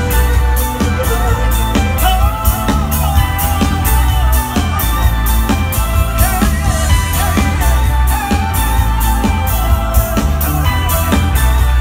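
Live band playing over a concert PA, heard from within the crowd: a steady drum-kit beat, heavy bass and a lead voice singing.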